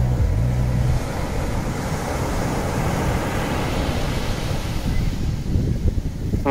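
Steady rushing noise that spreads from low to high pitches and wavers in level. The song's last low bass notes die away about a second in.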